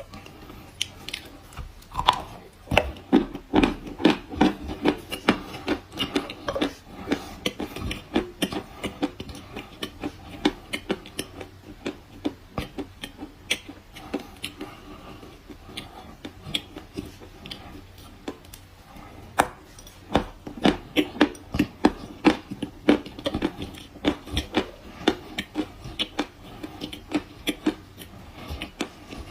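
Dry kaolin clay chalk being chewed, crisp crunches about two to three a second. There are two long runs of crunching, with sparser crunches between them.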